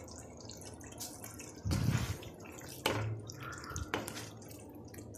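Wooden spatula stirring thick tinda masala in a nonstick wok: about three scraping, squelching strokes roughly a second apart, starting about a second and a half in, over a faint sizzle of the curry cooking.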